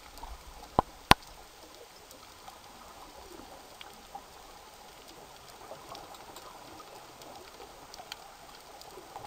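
Underwater reef ambience picked up by a dive camera: a steady hiss with scattered small clicks and crackles. Two sharp, loud clicks come about a second in.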